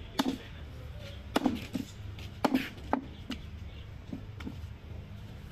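Butcher's heavy curved knife chopping goat leg meat and bone on a wooden log block: about ten sharp chops at an uneven pace, the hardest ones in the first three seconds.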